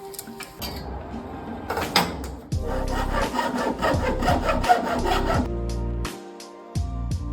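Music with a steady low beat, mixed with rasping, scraping work sounds.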